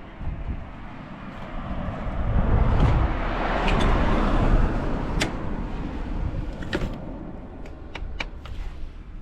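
Suzuki Goose 350's single-cylinder four-stroke engine running, getting louder for a few seconds in the middle and then settling back. A handful of sharp clicks sound in the second half.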